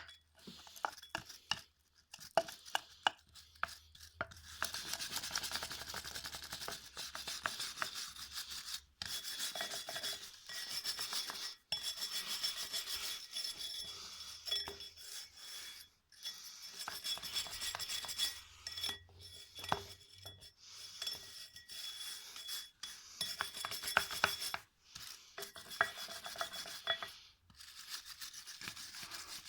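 Repeated scraping and rubbing on parts of an old vacuum pump being cleaned up during restoration, in stretches of a few seconds with short pauses and light clicks between.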